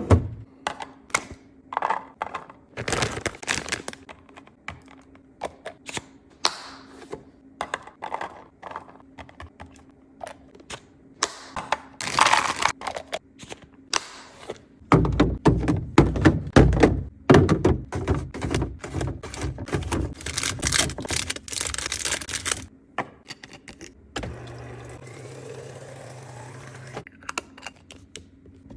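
Irregular clicks, taps and knocks of containers, lids and packages being handled and set down while restocking a fridge, thickest about halfway through. Near the end, a steady low hum runs for about three seconds.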